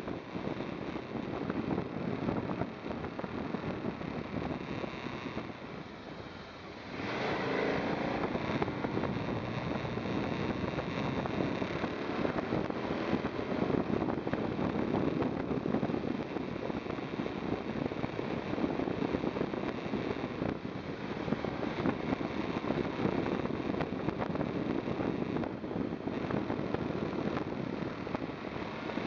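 KTM 990 SMT's V-twin engine running under way, mixed with wind rushing over the microphone. About seven seconds in, the engine gets louder and its note rises as the throttle opens, then it keeps pulling hard through the bends.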